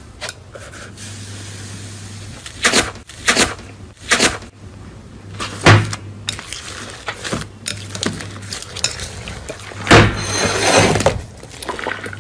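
Slime being pressed and pulled by hand, giving a string of sharp crackling snaps and pops. The loudest snap comes about ten seconds in and runs on into a second of dense crackling.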